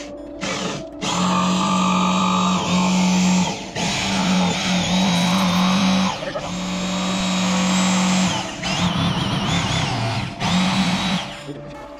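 Corded oscillating multi-tool cutting through OSB wall sheathing for a foundation vent opening. It runs in about five separate cuts of one to two seconds each, stopping and starting between them.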